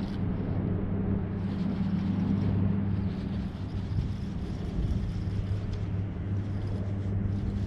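Boat motor running steadily with an even low hum.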